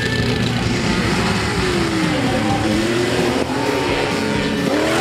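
Modified competition jeeps racing, engines revving hard, the pitch dropping and then climbing again as the throttle is worked.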